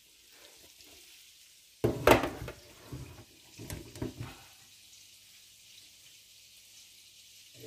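Handling knocks as a phone is moved and set down beside the stove: one sharp knock about two seconds in, smaller knocks around four seconds, then a faint steady hiss with a low hum.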